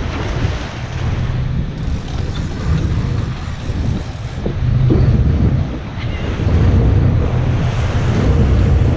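Wind buffeting the microphone over rushing, splashing seawater and the low, steady drone of a sportfishing boat's engines, getting louder from about halfway through.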